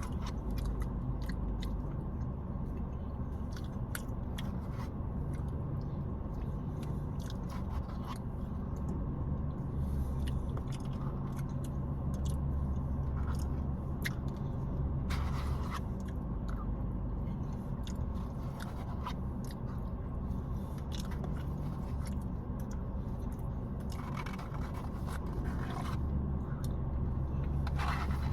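A person chewing mouthfuls from a KFC Famous Bowl, with scattered small clicks and several scrapes of a utensil against the bowl, over a steady low hum.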